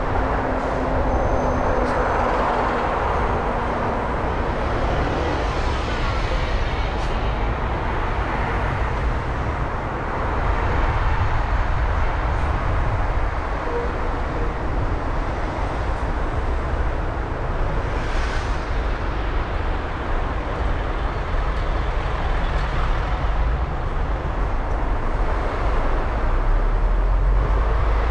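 Steady road and traffic noise of a car driving through city streets: low tyre and engine rumble with a hiss of traffic that swells now and then.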